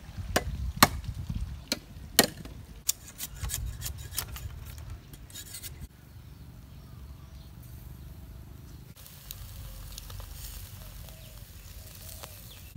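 A machete chopping sugarcane stalks against a wooden stump: a dozen or more sharp strikes, coming closer together after about three seconds and stopping abruptly near the middle. Then faint background, with a light sizzling of pork on sugarcane skewers grilling over charcoal from about two thirds of the way in.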